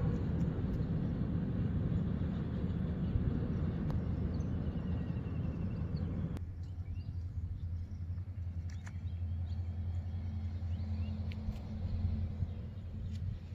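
Outdoor pond-side ambience: a steady low rumble with a few faint high chirps. The rumble thins abruptly about six seconds in.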